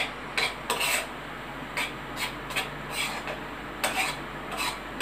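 A metal spoon scraping and knocking around a metal pan as sardines and egg are stirred, in short strokes about twice a second, over a faint steady low hum.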